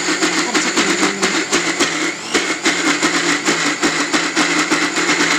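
Electric mixer grinder running with a stainless-steel jar, grinding soaked rice and lentils with a little water into a thick, coarse batter. The motor whine wavers under the load, with a fast rattle throughout.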